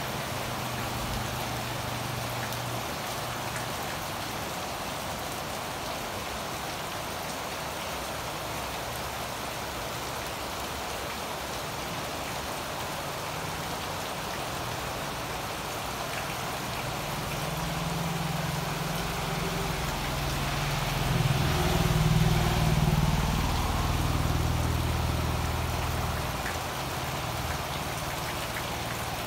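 Heavy rain pouring onto garden leaves and waterlogged ground, a steady hiss. Past the middle the low hum of a passing motor vehicle's engine rises, is loudest about three-quarters of the way through, and fades again.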